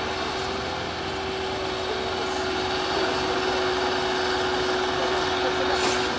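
Excavator engine running steadily under a continuous whine, with a short hiss near the end.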